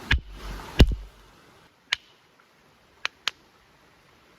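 Caribou antler striking a quartz stone to break it open: two sharp knocks in the first second, the second one the loudest, then a few fainter clicks.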